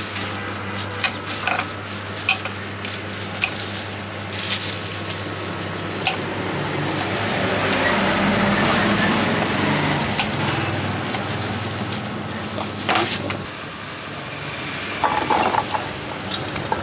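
A knife chopping fruit on a wooden cutting board, with sharp taps and clinks as pieces drop into a steel bowl. Street traffic runs underneath and swells about halfway through.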